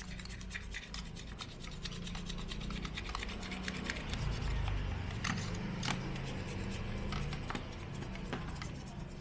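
An old toothbrush scrubbing foam cleaner over the plastic and rubber housing of a cordless impact driver, its bristles rasping in quick, continuous back-and-forth strokes.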